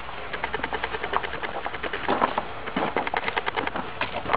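Old, overweight Rottweiler panting fast and rhythmically, several breaths a second, a sign of how tired the dog is from walking.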